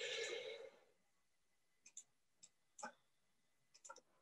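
A brief breathy noise, then about five or six faint, irregularly spaced clicks of a computer being worked, some in quick pairs, over near silence.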